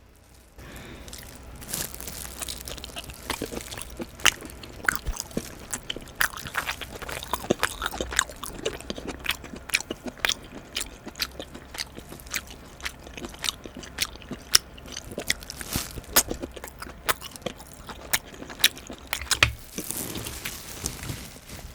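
Close-miked chewing of steamed abalone: crunchy, chewy bites with sharp wet clicks and crackles of the mouth.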